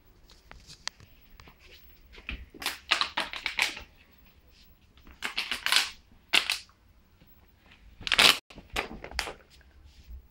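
Plastic water bottle toy crinkling and crackling in about five separate bursts as a dog plays with it.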